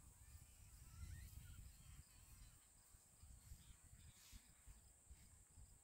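Near silence: faint outdoor ambience, with a low wind rumble on the microphone that eases after about two seconds and a faint steady high-pitched hiss throughout.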